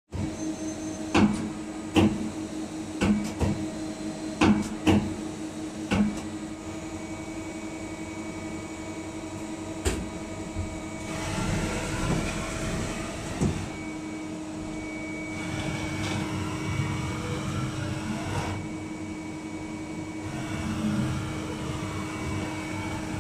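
Victor Taichung A26/85CV CNC lathe under power: a steady hum, with a run of sharp metallic clunks in the first six seconds. After that comes a lower, steady whirring with faint rising and falling whines.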